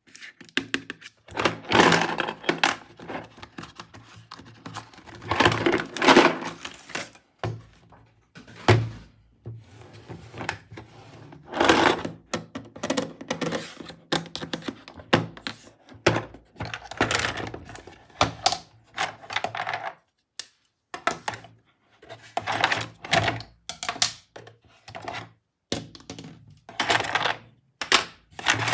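Hard plastic toy pieces being handled, clicked together and set down: irregular clusters of knocks, clicks and rattles with short pauses between them.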